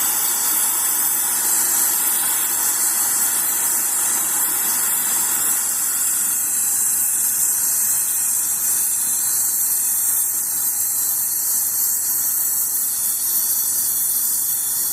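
Forge blower running steadily, a loud, even rush of air being forced into the coal fire.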